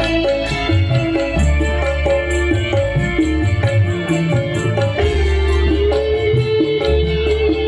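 Instrumental dangdut koplo music: fast, even drumming with tambourine-like jingles over a deep bass, under a keyboard melody that holds one long note from about five seconds in.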